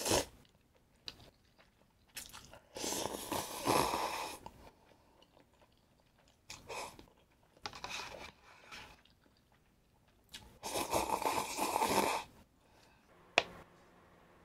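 Close-miked eating: a person biting and chewing food in several separate bursts, with a sharp click near the end.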